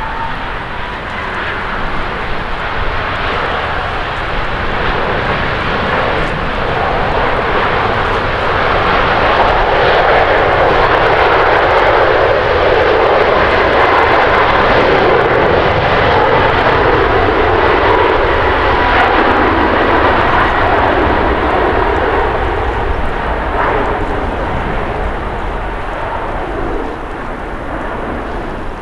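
Boeing 777-300 airliner's twin jet engines at takeoff thrust as it rolls past on the takeoff run. A loud rush with a steady fan whine builds to a peak about a third of the way in, holds, then fades as the aircraft pulls away and lifts off.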